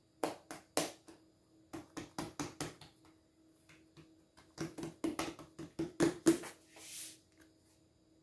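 Hands patting and pressing a strip of soft ensaimada dough flat on a paper-covered table: quick taps in three runs, then a short rustle near the end.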